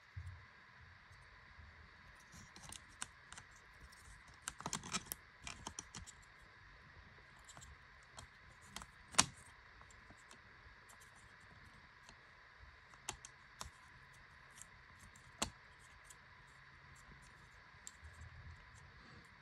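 Faint scattered plastic clicks and taps as a replacement laptop cooling fan is pressed and seated by hand in the chassis. There is a cluster of small knocks about five seconds in and a sharper single click near the middle.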